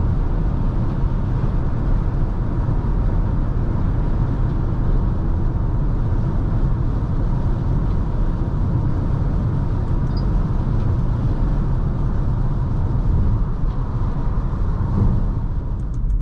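Steady road and tyre rumble with engine noise from a Chery Tiggo 4 Pro compact SUV being driven at a constant pace.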